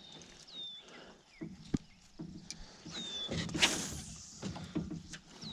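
A bird's short high whistle that drops and then levels off, repeated about every two and a half seconds. A brief rushing noise a little past halfway is the loudest sound.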